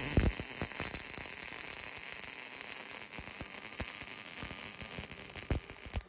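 MIG welding arc laying a bead on steel: a steady, dense crackle with many sharp pops, which cuts off abruptly at the end as the trigger is released.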